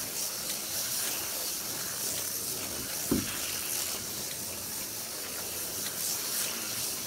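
HO-scale T-Jet slot cars racing round the track: a steady high hiss of the small motors and pickups running on the rails. One short low thump about three seconds in.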